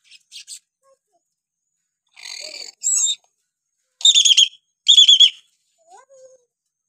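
Hill myna calling: a couple of rough short notes a little after two seconds in, then two loud, rapidly warbling whistled calls about a second apart.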